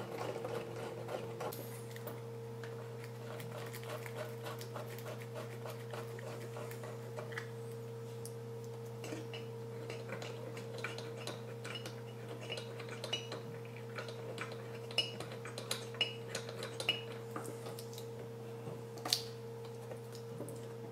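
Small metallic clicks and taps of screws and sliding mounting brackets being worked by hand while fastening a CPU liquid cooler's pump block, over a steady low electrical hum. The clicks come scattered and grow busier in the second half, with one louder click near the end.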